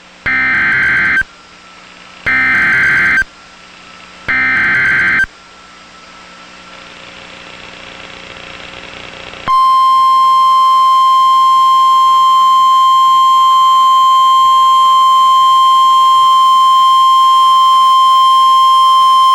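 Emergency Alert System SAME header: three one-second bursts of buzzy, warbling digital data tones about a second apart. About four seconds later the NOAA Weather Radio 1050 Hz warning alarm starts, a single steady loud tone held for about ten seconds and then cut off sharply, announcing a severe thunderstorm warning.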